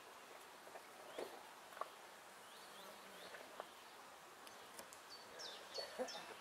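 Faint birdsong: a few soft rising chirps, then from about five seconds in a small bird repeating short high notes that drop in pitch, about three a second. A few soft clicks and knocks, the loudest near the end.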